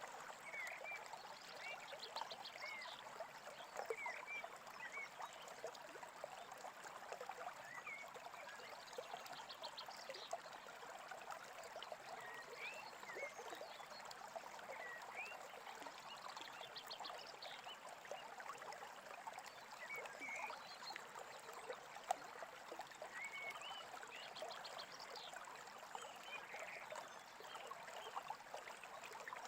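Small stream babbling steadily, with birds chirping now and then: short rising calls and a few quick trills over the flow of water.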